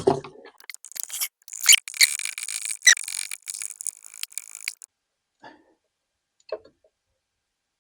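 Squeaky scraping of tools or parts being worked in a car's engine bay, with a few sharp squeaks about two and three seconds in, then a few faint light knocks.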